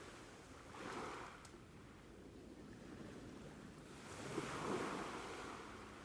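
Ocean waves washing on the shore, with two swells: one about a second in and a louder one in the second half.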